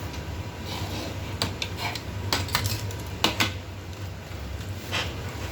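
Small metal repair tools clicking and tapping against the drone gimbal's parts as it is being opened, about eight sharp light clicks in small clusters, over a low steady hum.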